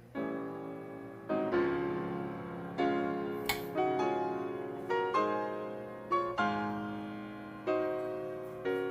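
Background piano music: chords struck about once a second, each fading away before the next, with a couple of faint clicks over it.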